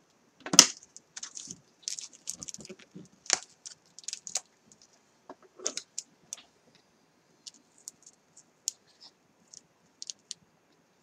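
Crinkling and clicking of packaging being handled and worked open by hand to get at a spool of ribbon, with a sharp knock about half a second in. The crackling is busy at first and thins to scattered ticks in the second half.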